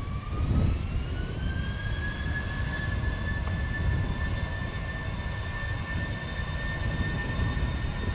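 Airbus A320-232's IAE V2500 turbofan engines spooling up for takeoff: a whine that rises over the first couple of seconds, then holds steady at takeoff power over a low rumble.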